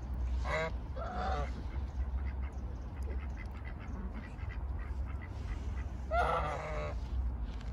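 Domestic goose honking: two short honks about half a second and a second in, then a longer honk near the end.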